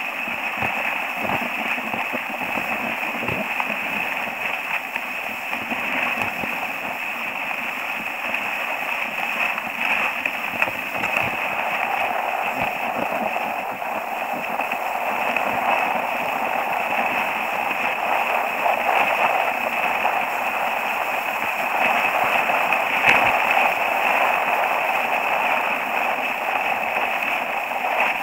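Dynastar skis sliding and scraping over packed, groomed snow in a steady hiss, with occasional small clicks and knocks from the skis. The sound is heard close up from a camera strapped to the ski boot.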